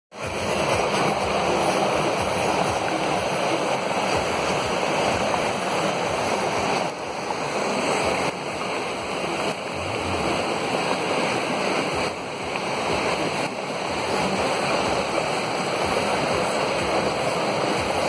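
Torrential monsoon rain and muddy runoff pouring across a hill highway: a steady, loud rush of falling and flowing water, dipping briefly a few times.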